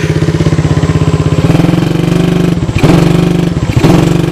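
The single-cylinder four-stroke engine of a 2015 Coolster 125cc ATV chugs at low revs, then revs up about a second and a half in and is held on the throttle, dipping briefly twice. It is straining under the load of towing a dead Honda 300EX and lacks the power to pull it.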